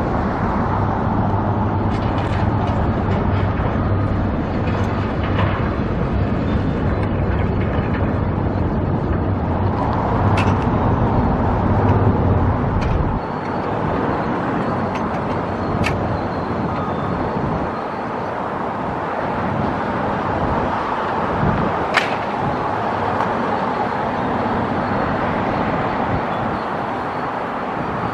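Street traffic with a heavy engine running close by; its low hum drops away suddenly about halfway through. A few sharp clanks stand out over the traffic, three of them in the second half.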